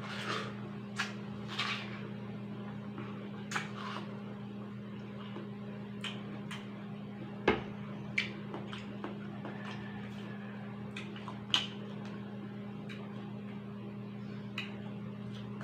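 Biting into and chewing juicy watermelon slices: scattered short wet crunches and smacks, the loudest about halfway. A steady low hum sits underneath.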